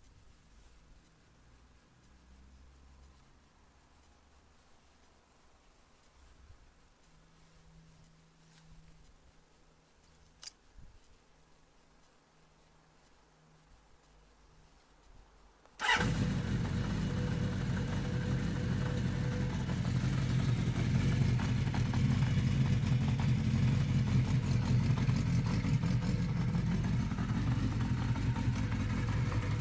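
Kawasaki GT550's air-cooled inline-four engine starting suddenly a little past halfway through, after a quiet stretch broken by a single click, then idling steadily.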